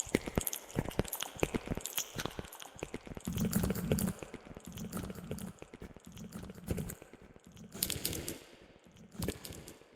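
Close-miked ASMR mouth sounds with echo added: wet clicks, smacks and tongue pops, thick and rapid for the first few seconds, then giving way to lower, softer wet sounds.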